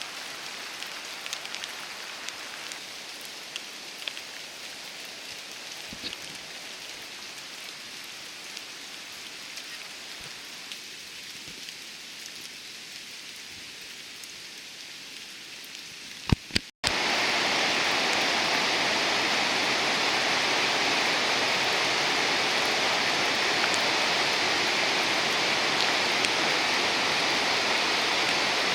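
Rain falling, an even hiss with scattered drop ticks. About 17 seconds in, after a cut, a much louder steady rushing of falling water takes over: Senpiro Falls, a granite-face waterfall.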